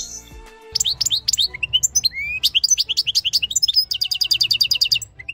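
A caged finch singing a fast, varied song of sharp chirps and upswept whistles that starts about a second in, then breaks into a rapid trill of repeated notes, about a dozen a second.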